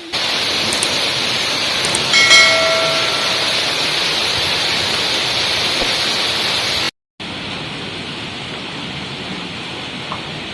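Heavy rain and strong wind in a steady loud rush. A short pitched tone sounds about two seconds in. Near the middle the sound cuts out for a moment, then resumes a little quieter.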